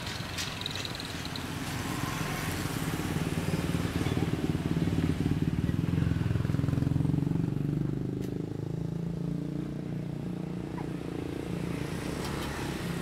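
Motorcycle engines running in street traffic, a low steady hum that grows louder in the middle and then eases off.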